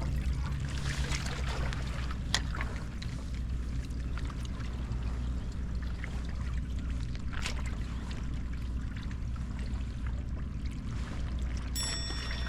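Water sloshing and trickling at the fishing spot over a steady low rumble, with a couple of sharp clicks and a short high-pitched tone near the end.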